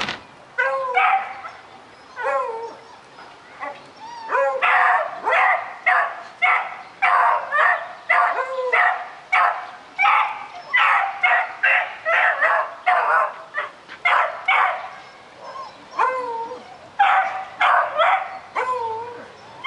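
Beagle puppy barking and yelping at a rabbit: a few single barks, then a fast run of high, bending yelps about two a second, a short pause, and a few more.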